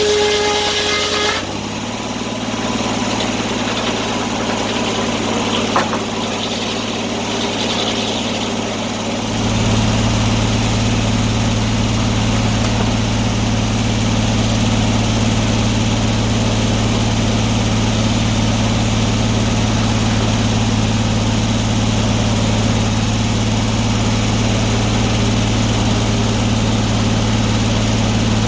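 Antique sawmill's engine running steadily. A higher whine stops about a second and a half in, a single sharp click comes near six seconds, and a deeper steady hum sets in about nine seconds in and holds.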